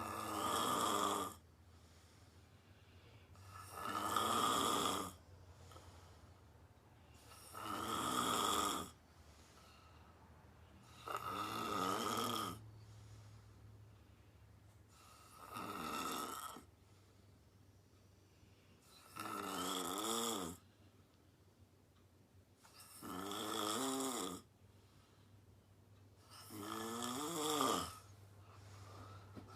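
A sleeping woman snoring: eight snores about every four seconds, each lasting about a second and a half.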